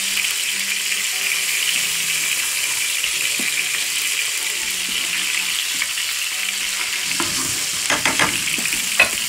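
Oil sizzling steadily in a frying pan as flour-coated pieces of trout and rock turbot shallow-fry, with a few clicks and knocks near the end.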